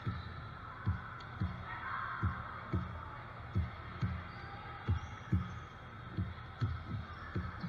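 Repeated low, dull thumps, about two a second and fairly even, over the steady murmur of a gym crowd.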